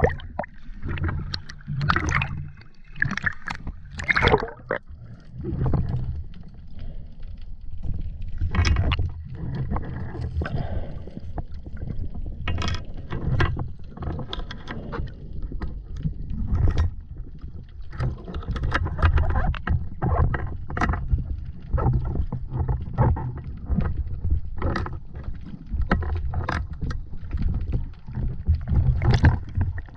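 Sea water sloshing and splashing around a speargun-mounted camera at the surface, heard as a continuous low churning rumble with frequent short splashes and gurgles as the lens dips in and out of the water.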